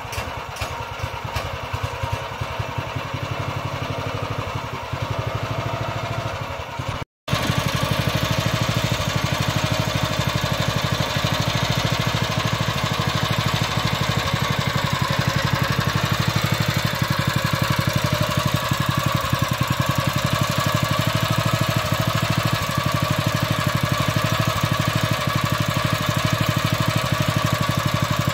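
A small engine running steadily at a constant speed, with an even rapid pulsing. A brief dropout comes about seven seconds in, after which the engine is louder and even.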